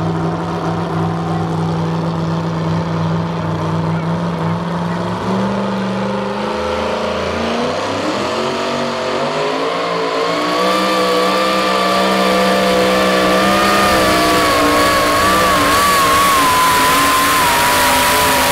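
Supercharged engine of a modified two-wheel-drive pulling truck, first running at a steady idle, then revving up as the truck launches. From about ten seconds in it runs louder and higher at full throttle, wavering slightly in pitch, as it drags the weight sled down the track.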